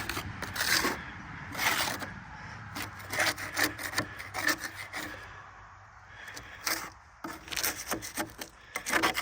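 Repeated rough scraping strokes, irregular, about one or two a second with a lull around the middle, as caked mud and debris are scraped off a skid loader's belly pan.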